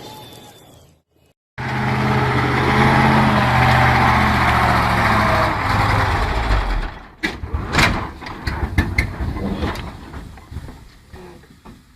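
A heavy vehicle's engine running loud and steady under load. It stops abruptly about seven seconds in, followed by a handful of sharp knocks and bangs that die away.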